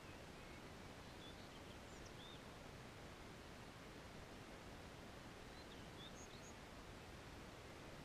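Near silence: faint, steady outdoor background hiss, with a few faint, high bird chirps about a second in and again around six seconds.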